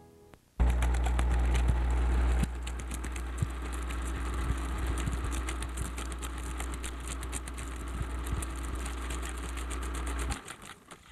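A steady low electrical-sounding hum with rapid crackling clicks over it, starting abruptly and cutting off near the end. It is louder for the first couple of seconds, then drops a step.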